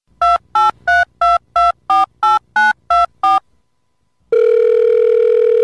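Touch-tone phone keypad dialing ten digits in quick succession, each beep a pair of tones. After a short pause a steady ringing tone comes on as the call goes through.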